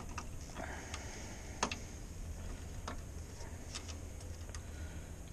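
Irregular sharp plastic clicks and taps from hands working a truck's EVAP canister vent valve solenoid and its electrical connector, over a steady low hum.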